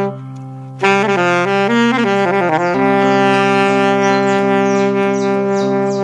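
Saxophone playing a slow, lyrical melody over a steady low backing drone: a short rest, a quick run of notes dipping down, then one long held note. Short, high bird chirps come in over the music from about halfway.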